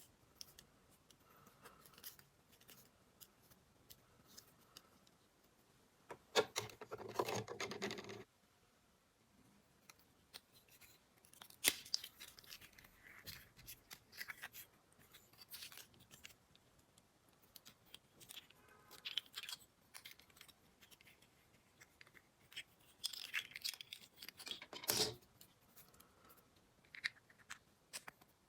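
Miniature plastic toy pieces and their packaging being handled up close: scattered light clicks, scrapes and rustling. A denser, louder rustle lasts about two seconds, starting some six seconds in.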